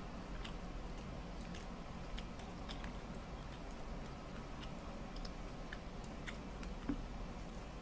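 A person eating tandoori chicken by hand: scattered small wet clicks and smacks of chewing and of fingers pulling the meat, one a little louder near the end, over a steady low hum.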